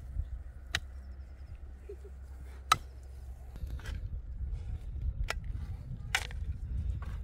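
About five sharp knocks or chopping strikes at irregular intervals, the loudest nearly three seconds in, over a low rumble that grows louder in the second half.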